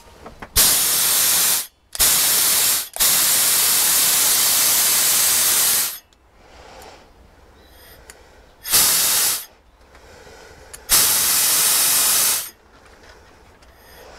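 Compressed air hissing from an air-line nozzle, used to inflate fishing buoys, in five sharp on-off blasts. The third blast lasts about three seconds and the fourth is short.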